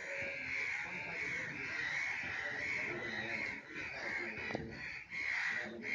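Crows cawing over and over, about three calls a second, over the hiss of battered potato chops deep-frying in a wok of oil.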